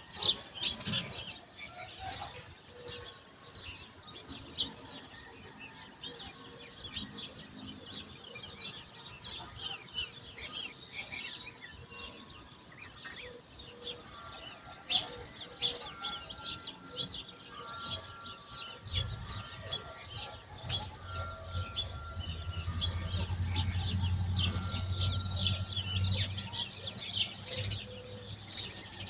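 Morning chorus of small birds chirping in many quick, short calls. About two-thirds of the way in, a low rumble swells and then fades away.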